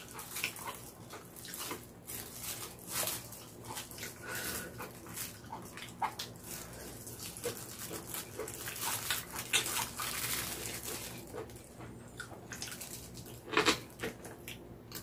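Faint crinkling of a disposable plastic glove and sticky clicks as sauced pork-feet pieces are handled in a pan, with a louder mouth sound as a piece is bitten near the end.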